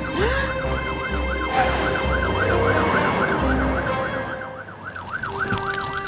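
Cartoon fire truck siren, wailing rapidly up and down about three or four times a second, over background music.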